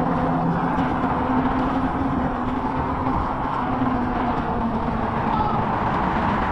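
Steady vehicle and street-traffic noise: a continuous rumble with a faint steady hum in it, with no single event standing out.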